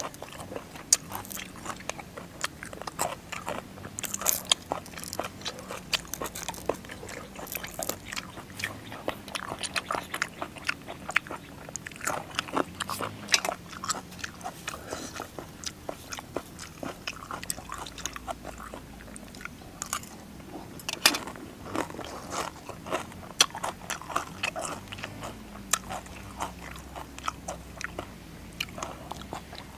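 Close eating sounds: crisp crunching and chewing of raw green vegetable stalks, many sharp bites and chews in an irregular rhythm.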